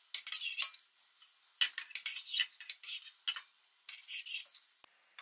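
Metal spoon clinking and scraping against a stainless steel saucepan and a glass bowl, in four short clusters, as orange peel and cinnamon leaves are fished out of the water.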